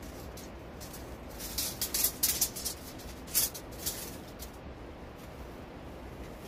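A metal shovel blade scraping and clattering against stones and soil: a quick cluster of short scrapes and knocks between about one and a half and four seconds in, over a steady low background noise.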